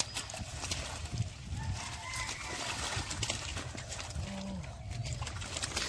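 Hands sloshing and squelching through shallow muddy water, rustling water hyacinth leaves, with many short splashes and crackles throughout.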